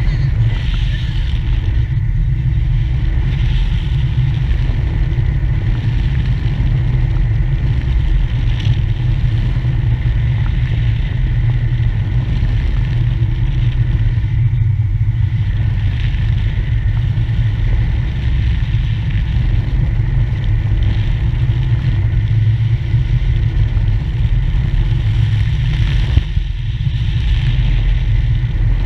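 Wind buffeting the microphone of a camera mounted on a parasail harness: a steady, loud low rumble with a hiss above it.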